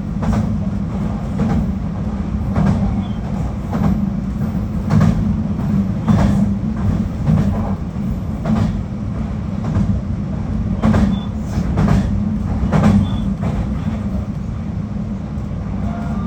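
JR Kyushu 821 series electric multiple unit running along the track, heard from inside the car: a steady low rumble with sharp clicks about every second or so as the wheels cross rail joints.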